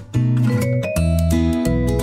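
Instrumental background music with acoustic guitar, cutting out for a moment right at the start before carrying on.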